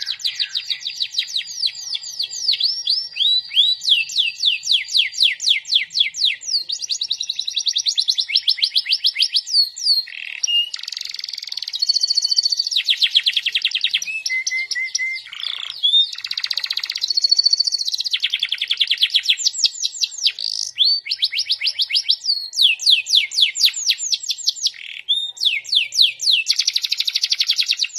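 Domestic canary singing a long, loud song of rapid trills. Each phrase is a fast string of repeated downward-sweeping notes, and it switches to a new trill every second or two with only brief pauses.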